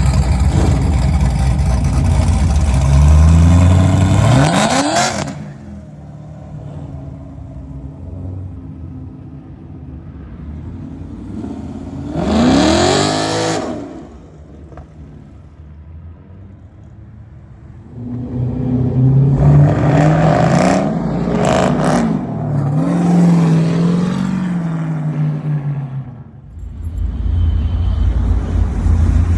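Modified V8 car engines revving with a loud exhaust: a deep rumble that climbs in a rev near the start, then quieter idling, a single sharp rev that rises and falls about halfway through the first half, and a run of repeated revs later with a few sharp cracks among them. A loud low rumble returns near the end.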